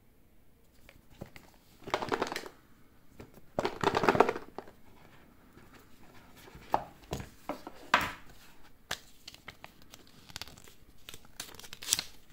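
Packaging of a pair of wireless earbuds being opened by hand: crinkling and tearing in two louder spells about two and four seconds in, then scattered clicks and short rustles.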